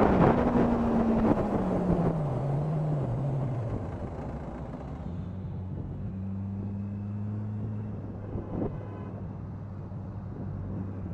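Vehicle engine winding down as the vehicle slows, its pitch falling over the first few seconds while wind rush fades. It then settles into a steady low hum.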